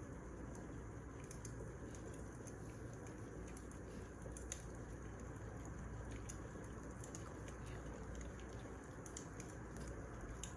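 Wood fire crackling: irregular small pops and snaps over a steady low rush.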